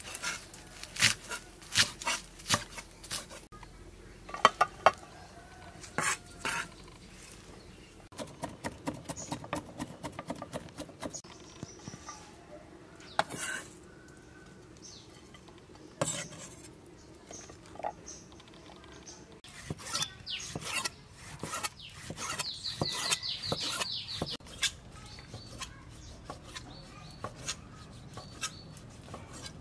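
Kitchen knife and cleaver knocking on wooden cutting boards: leafy greens being chopped, then raw beef being cut on a round wooden block. Sharp knocks come one after another in the first few seconds, and a quick run of strikes comes near the end, among scattered clatter of utensils and bowls.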